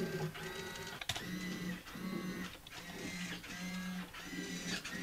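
Standard-size hobby servos whirring in a quick series of short, even-pitched whirs, about two a second, as their levers push the Nerf dart cassette sliders in and out.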